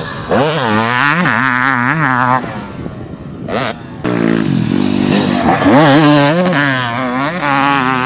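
KTM 300SX single-cylinder two-stroke motocross bike being ridden hard on a dirt track, its engine pitch rising and falling over and over as the rider works the throttle. The engine drops back briefly about halfway through, then comes back loud.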